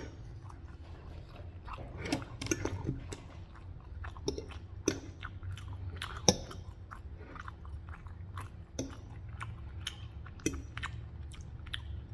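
A person chewing food close to the microphone, with irregular short wet smacks and clicks of the mouth.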